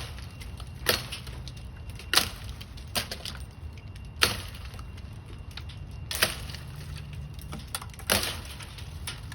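Repeated sharp blows knocking into dead lemon-tree wood to break off branches, about half a dozen strikes one to two seconds apart.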